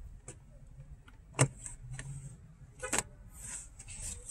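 Sharp plastic clicks as the retaining clips of the Lexus UX's cabin air filter housing cover snap free. The loudest click is about a second and a half in and another comes near three seconds, with light handling of the plastic cover between them.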